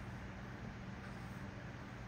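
Steady low hum with an even hiss over it, unchanging throughout; no distinct taps of the stylus on the screen stand out.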